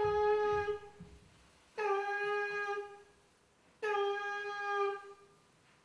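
A horn-like wind instrument sounding the same steady note three times, each about a second long and about two seconds apart, with a slight rise in pitch at the start of each note.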